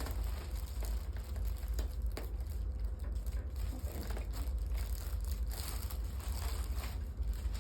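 Soft rustling and faint scattered clicks as a patient shifts position on a chiropractic table, over a steady low hum.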